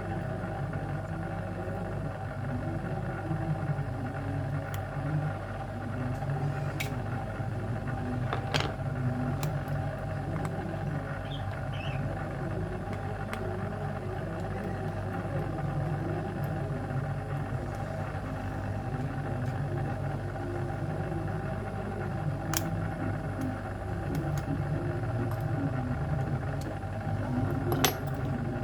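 Steady low machine-like hum, continuous throughout, with a few sharp small clicks.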